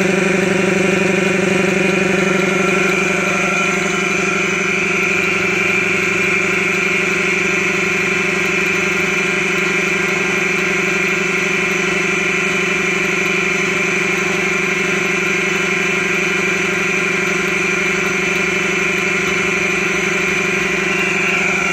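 Old 10-gallon air compressor running steadily, its electric motor driving a single-cylinder piston pump with a constant hum.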